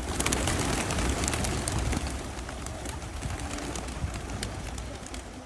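A flock of pigeons crowding in to be fed: a dense flutter and rustle with many sharp clicks, and a few low coos.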